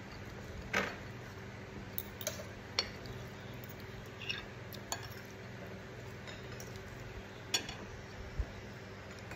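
Metal spoon and fork clinking against a porcelain plate of noodle soup while eating: short, sharp clinks at irregular intervals, the loudest about a second in and again near the end, over a faint steady hum.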